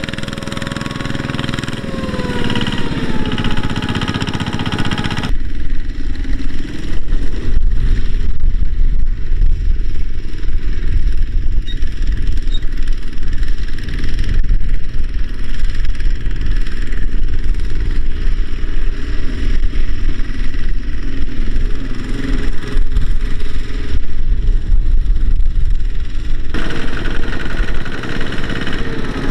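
Single-cylinder diesel engine of a two-wheel walking tractor running under load as it hauls a trailer of rice sacks, its engine speed shifting in the first few seconds. About five seconds in the sound changes suddenly to a heavy low rumble with the higher sounds dropping away, and changes back near the end.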